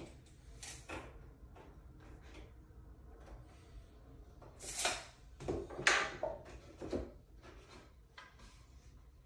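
Pine boards being handled on a wooden shelf: a scrape and a few wooden knocks, the loudest a little past the middle, with light rustling between.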